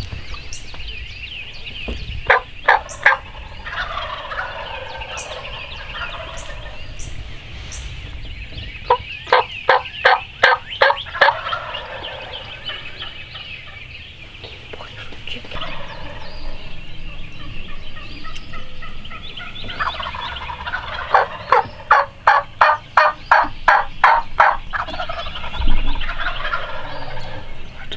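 Turkey yelping in three runs of evenly spaced loud notes, about three a second: a short run, a longer one, then the longest. Songbirds of the dawn chorus sing underneath, and there is a single thump near the end.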